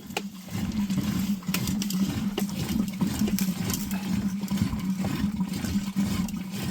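Running water, a steady rush with a low hum and many small splashing crackles, starting suddenly.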